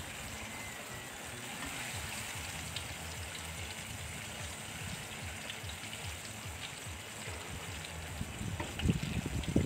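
Banana fritters deep-frying in a large pot of hot oil: a steady sizzle and bubbling. A few low thumps come near the end.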